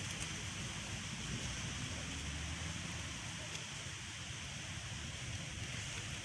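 Steady outdoor background noise: a constant hiss with a low rumble underneath, with no distinct events.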